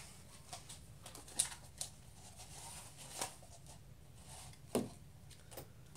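Quiet room with faint rustling and a few soft taps, four or so spread through it, as a person moves about and handles cardboard party hats.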